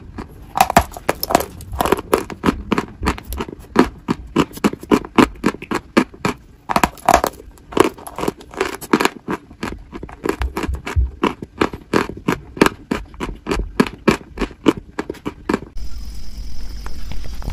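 Close-miked crunching of a dry, chalky white block as it is bitten and chewed, with several sharp crunches a second. The crunches thin out near the end.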